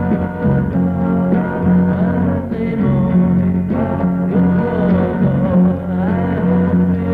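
A 1960s beat band playing a rock and roll number on electric guitars, bass and drums, with a steady pulsing bass line underneath.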